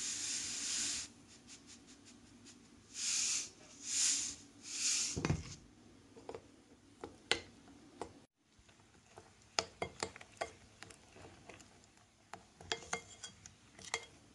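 Salt poured from a table-salt container into batter in a few hissing bursts, with a thump about five seconds in; then a metal spoon stirring thick buckwheat batter in a glass bowl, clinking repeatedly against the glass.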